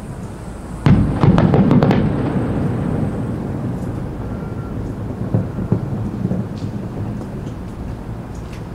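Aerial fireworks bursting: several sharp bangs in quick succession about a second in, then a rolling rumble that slowly fades, with a few lighter pops and crackles near the end.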